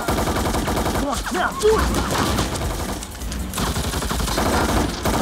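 Automatic fire from AK-pattern assault rifles: rapid, dense shots from more than one gun in a sustained exchange of fire.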